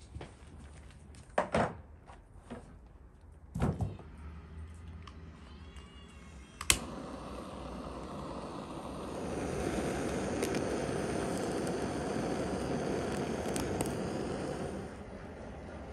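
A few knocks in the first four seconds. Then a handheld butane blowtorch clicks alight a little before halfway and gives a steady flame hiss, louder from about two seconds later, while it singes the skin of a whole raw chicken. The hiss cuts off shortly before the end.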